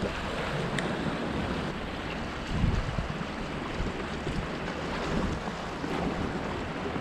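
Small waves washing and splashing against the rocks of a jetty, with wind buffeting the microphone and a stronger low gust about two and a half seconds in.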